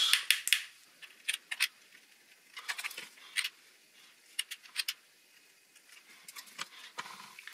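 Scattered light clicks and taps, in small clusters with quiet gaps between, from a hot glue gun being worked and a plastic waste pipe being handled.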